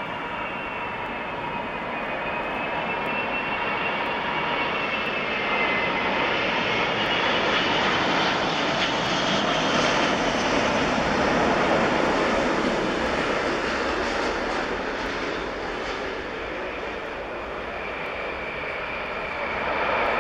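Four-engined Emirates Airbus A380 (Engine Alliance GP7200 turbofans) on final approach, passing close at low altitude. A high engine whine over a steady jet rumble dips in pitch as the jet nears, and the noise swells to its loudest about ten to twelve seconds in, then eases as the aircraft flies on toward the runway.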